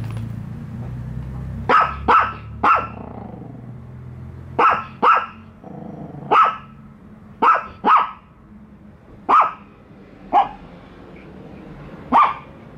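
Small dogs (a Yorkshire terrier puppy and a Chihuahua) barking in short, sharp yaps, about a dozen, often two in quick succession, at an unfamiliar toy dog. A low rumble runs underneath the first few seconds.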